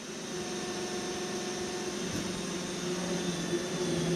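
iRobot Roomba 960 robot vacuum running, a steady motor hum and whine that grows louder over the first couple of seconds. It is working over a spot it has sensed as dirty.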